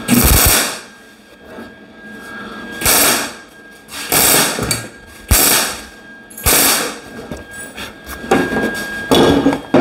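MIG welder tack-welding a sheet-metal patch panel: about five short bursts of welding, each about half a second with a pause of a second or so between, then quicker, shorter bursts near the end.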